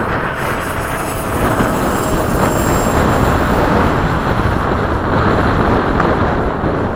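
RC MiG-21 model jet's electric ducted fan giving a thin, steady high whine as it flies, mostly buried under heavy wind noise on the microphone.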